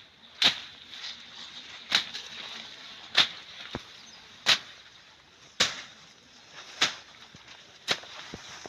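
A slasher blade swung into weeds and brush along a fence line, cutting with seven sharp strikes at a steady pace of about one every second and a quarter.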